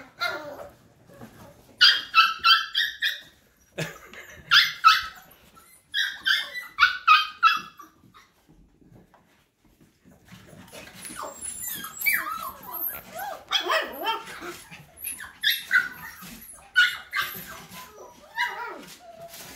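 Mini goldendoodle puppies yipping and barking in quick high-pitched bursts, with a quieter pause of about two seconds near the middle.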